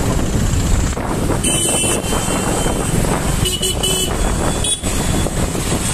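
Steady rumble and wind noise of a moving motorbike in traffic, with several short vehicle horn honks: one about one and a half seconds in, a couple of quick ones around three and a half seconds, and another near five seconds.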